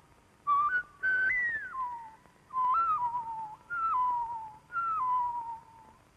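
A woman whistling imitation bird calls: five short calls, each jumping between pitches and most ending with a drop to a lower held note.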